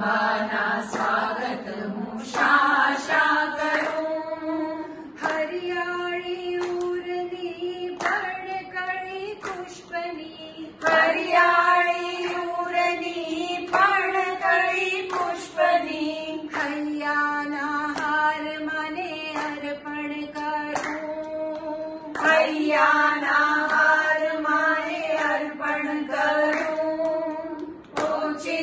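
A group of women singing a Gujarati devotional garba together in Gujarati, with their hand claps keeping time.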